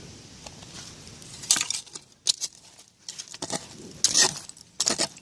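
Small metal objects clinking and jingling in several short bursts, the loudest about four seconds in.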